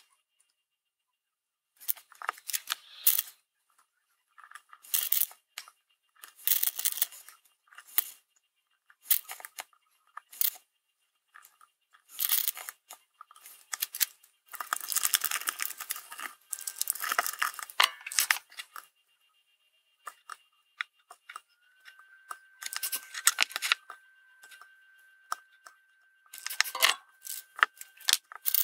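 Adhesive tape being handled and pressed onto an LED circuit board, with bursts of crackling and rustling. A steady high tone comes in about two-thirds of the way through.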